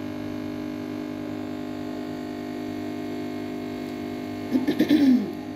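Steady electrical hum with many evenly spaced tones. About four and a half seconds in, a short voice-like sound with a wavering pitch rises briefly above the hum.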